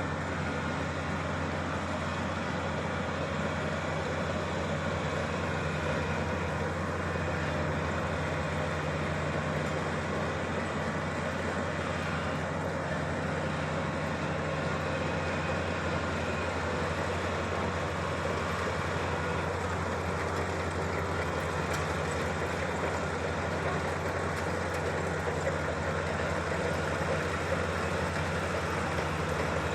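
Kubota DC-35 combine harvester running steadily: a constant low diesel engine drone with machinery noise over it, holding an even level throughout.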